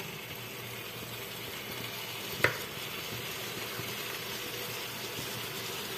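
Chicken pieces frying in spiced oil in an aluminium pot, a steady sizzle. A single sharp click comes about two and a half seconds in.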